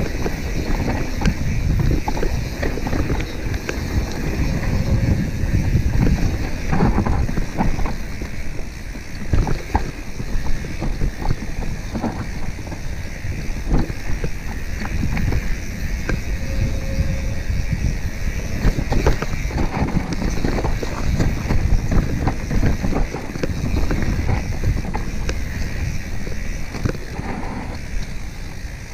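Mountain bike riding fast downhill on a dirt singletrack: a continuous rumble of tyres over dirt and dry leaves, with frequent clicks and knocks as the bike rattles over bumps, and wind buffeting the microphone.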